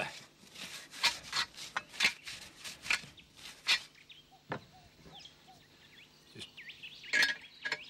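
Soapy water being scrubbed around the bead of a tyre on its steel rim, a quick run of rubbing strokes about two or three a second that stops about halfway through. A single louder scrape follows near the end.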